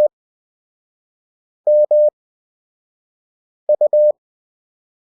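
Morse code practice tone, a single steady mid-pitched beep keyed in fast dits and dahs, sending single characters with long gaps between them. The end of a K (dah-dit-dah) at the start, an M (dah-dah) a little under two seconds in, and a U (dit-dit-dah) near four seconds in.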